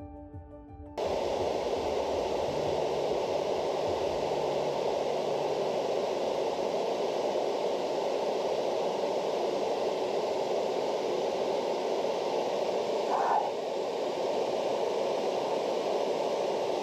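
Waterfall and river water rushing: a steady, even hiss with one brief louder swish late on.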